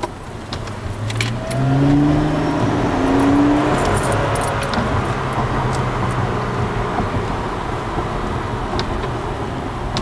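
Supercharged V6 of a TRD Aurion heard from inside the cabin, pulling up in pitch twice under acceleration about two and three seconds in, then running steadily at cruise with road noise. A few light clicks and jingles sound over it.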